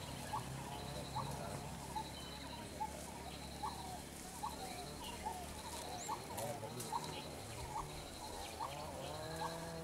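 Birds calling in scrubland: a short rising note repeated about once a second, with a high rapid trill coming in repeated bursts, over a low steady hum.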